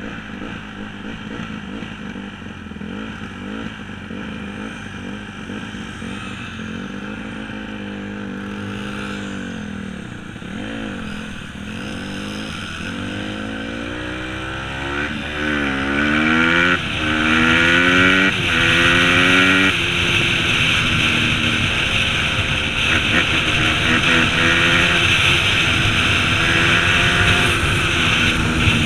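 Small off-road engine running under the rider, first cruising, then accelerating hard through the gears about halfway through, its pitch climbing and dropping back about five times in quick succession. Wind rushing past the helmet grows loud as the speed builds and stays loud.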